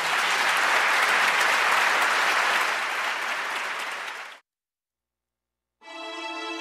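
Applause at the end of a sung performance, cutting off abruptly about four seconds in. After a second and a half of silence, soft music with sustained tones begins near the end.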